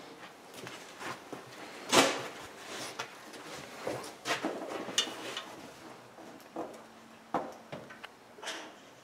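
Scattered short knocks and clicks of handling, the loudest about two seconds in, with a few fainter ones spread after it.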